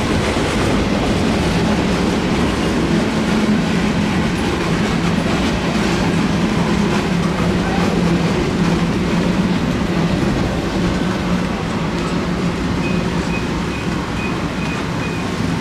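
Freight train cars rolling past close by: a steady, loud rumble of wheels on the rails with clickety-clack. A faint, high, evenly repeating tone joins about thirteen seconds in.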